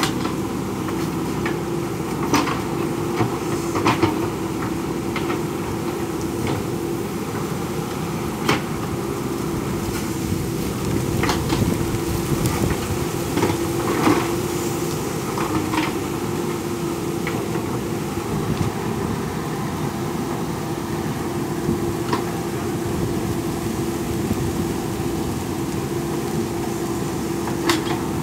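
JCB backhoe loader's diesel engine running steadily, with a dozen or so irregular sharp metallic clanks and knocks from the working machine scattered through it.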